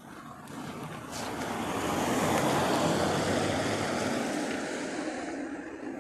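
A vehicle passing on the road close by: tyre and engine noise swelling over the first two seconds, then slowly fading.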